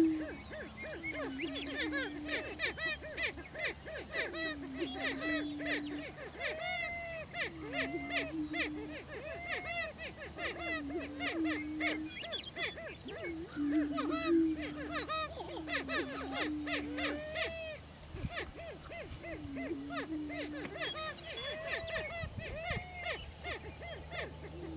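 Male greater prairie chickens booming on a lek: low moaning calls repeat about every two seconds, overlapping with many shorter, higher cackling calls from several birds. This is their display for breeding territory.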